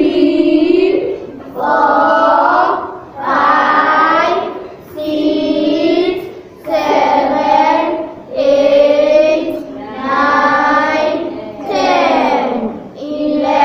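A class of children counting aloud in unison, chanting one drawn-out number about every second and a half.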